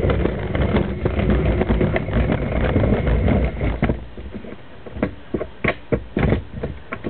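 Camera handling noise as the camera is lifted and repositioned: a rumbling, rubbing scrape for about four seconds, then a few separate knocks and clicks.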